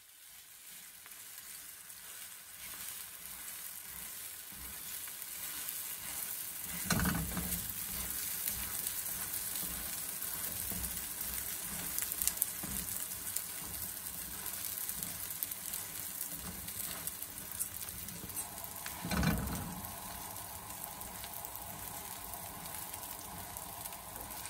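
Oiled flatbread batter sizzling on a hot flat iron griddle just after being turned over, the oiled side now frying against the pan; the sizzle builds over the first few seconds and then holds steady. Two dull knocks come about 7 and 19 seconds in.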